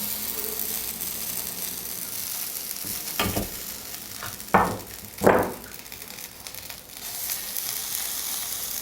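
Marinated paneer tikka sizzling on a hot tawa plate fresh from a five-minute grill preheat, with a steady hiss and three louder sizzles about three, four and a half and five seconds in as the skewers go down on the plate.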